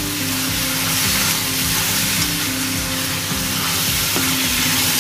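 Marinated pork belly sizzling steadily in hot oil in a stainless steel frying pan, stirred with a spatula as it sautés with garlic and onion.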